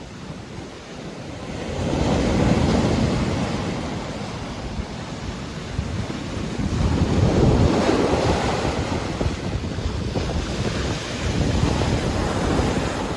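Ocean waves breaking and washing up the shore, swelling in three surges about every four to five seconds.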